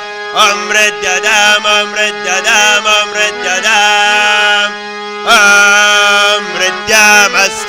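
Sanskrit Vedic mantras chanted in a single voice, in long held notes that bend in pitch, over a steady low drone. The voice pauses briefly about five seconds in.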